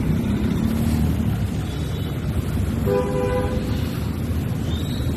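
Steady low rumbling noise, with a vehicle horn sounding briefly about three seconds in.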